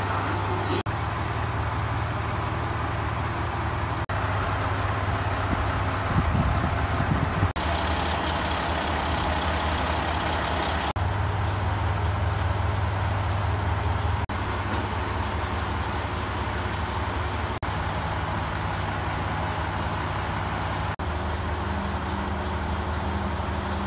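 Diesel engine of a KiHa 200 railcar idling while the train stands at the platform: a steady low drone that breaks off for an instant several times.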